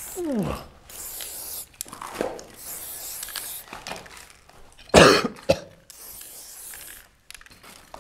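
Aerosol spray-paint can hissing in short bursts against a wall, broken by a loud cough about five seconds in.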